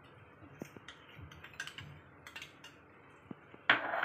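Steel spoon scraping and clinking against a stainless steel plate, a short louder scrape near the end, with a few faint clicks before it.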